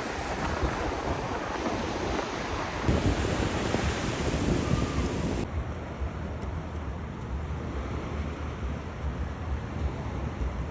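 Wind blowing across the microphone over a steady low rumble. The hiss drops away suddenly about halfway through, leaving a duller rumble.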